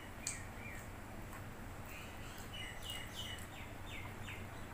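A bird chirping in short falling notes: a pair just after the start, then a quick run of about six from about two seconds in. Faint clicks and a low steady hum lie underneath.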